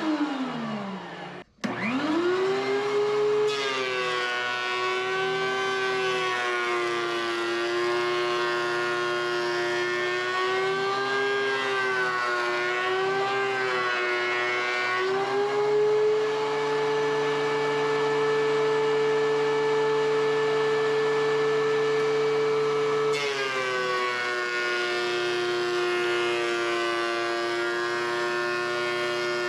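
DeWalt DW735 thickness planer motor and cutterhead running with a loud whine, planing pine. Near the start the pitch falls away and cuts out, then climbs straight back up to speed. The pitch then sags and wavers as the board is fed through, rises about halfway in, and drops again about two-thirds in as the cutters take load.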